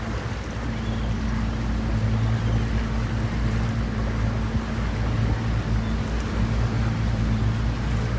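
Boat engine running at a steady speed, a low hum under a steady rush of wind and water noise.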